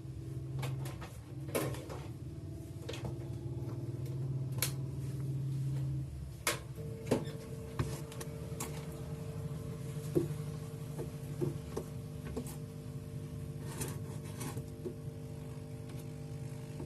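Small, sharp clicks and taps of repair tools on a smartphone being taken apart for a display replacement, scattered over a steady low hum that shifts a little in pitch about six seconds in.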